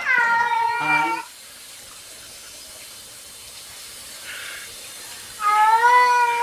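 Cats meowing while being bathed: a long loud meow at the start and another near the end, with the steady hiss of running water from a sink sprayer between them.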